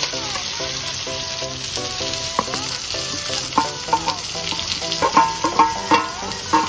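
Sliced onions sizzling as they fry in hot oil with cumin seeds in a metal kadhai. From about halfway on, a wooden spatula stirs them, scraping and knocking against the pan.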